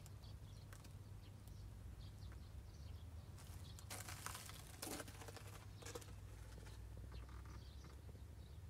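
Near silence: a faint low hum with a few soft rustles and clicks between about three and a half and six seconds in.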